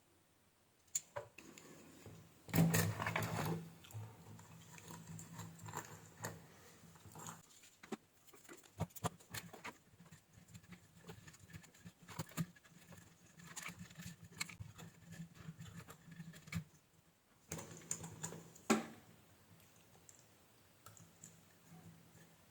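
Irregular small clicks, taps and rattles of hand tools and small parts being handled, with a louder scraping rustle a few seconds in and a low hum that comes and goes.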